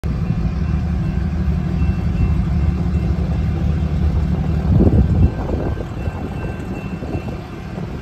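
Low, steady engine rumble of road traffic beside a railroad grade crossing, with a brief louder rush about five seconds in.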